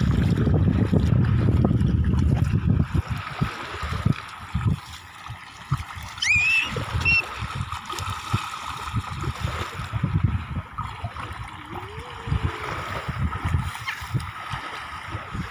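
Shallow seawater splashing and sloshing as a small child kicks and slaps at it, in irregular short splashes. Wind buffets the microphone in a low rumble for the first few seconds. A brief high squeak comes about six seconds in.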